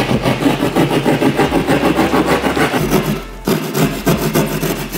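Hand drywall jab saw sawing through gypsum board in quick rasping back-and-forth strokes, with a brief break about three seconds in.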